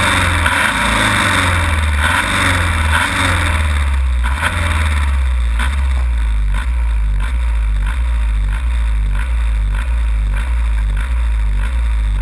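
Pulling tractor's engine heard from the seat, running at low revs with a few small throttle blips in the first few seconds, then settling into a lumpy idle with an even beat of nearly three pulses a second.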